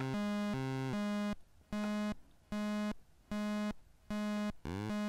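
Lunetta logic-chip synthesizer playing buzzy square-wave tones in a clocked sequence. An LFO steps them through a frequency divider, so they pulse on and off about once every 0.8 s and hop between a few pitches. Near the end the pitch glides quickly, and the tones then run on without gaps.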